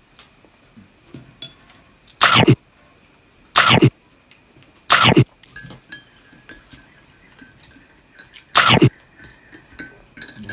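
Four loud, short animal calls at uneven gaps, each about a third of a second long and a second or more apart.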